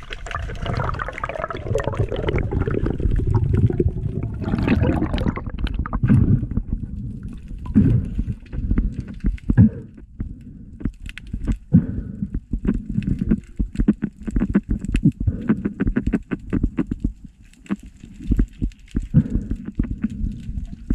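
Underwater noise picked up by a camera beneath the surface: water rushing and gurgling around it as the diver moves. Through the second half come many sharp, irregular clicks and knocks.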